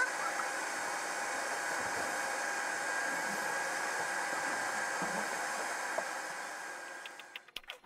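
Shop vacuum running steadily with a motor whine as its hose sucks debris from the floor; it fades out near the end, and plucked music starts in the last half second.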